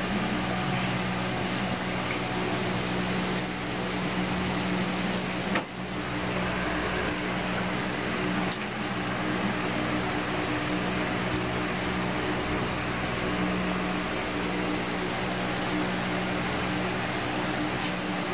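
Steady room ventilation hum with a low drone, and a single sharp click about five and a half seconds in.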